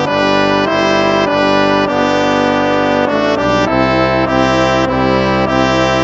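Instrumental hymn music: held chords of stacked steady tones, moving to a new chord every half second to a second.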